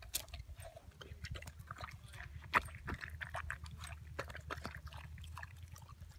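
Wirehaired vizsla eating watermelon out of a half rind: irregular wet chewing, slurping and smacking clicks, one louder snap about two and a half seconds in, over a steady low rumble.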